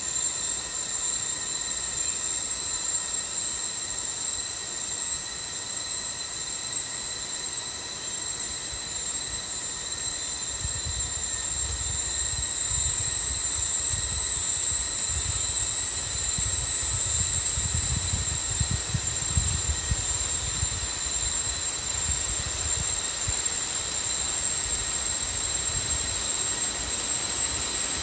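Steady high-pitched insect drone. From about ten seconds in until past twenty seconds, a low rumble rises beneath it.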